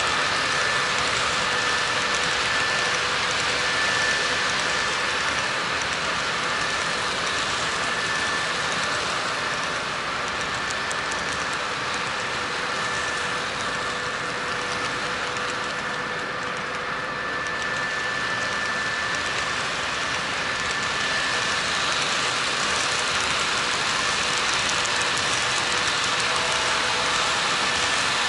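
Model train freight cars rolling steadily along the track, their wheels making a continuous rolling noise on the rails, with faint steady whining tones running underneath.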